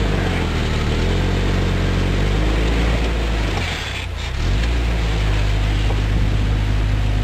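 Lifted Jeep Cherokee's engine pulling under load as the truck crawls up a rock ledge. The revs ease off briefly about halfway through, then come back up.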